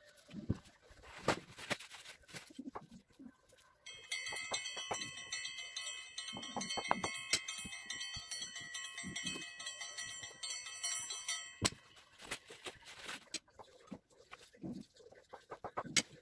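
Kitchen handling sounds: diced beetroot dropped into a glass bowl, the bowl shifted on the table and a knife and beet set on a cutting board, giving light knocks and taps. From about four seconds in to near twelve, a steady high ringing tone with many overtones plays over them and cuts off suddenly.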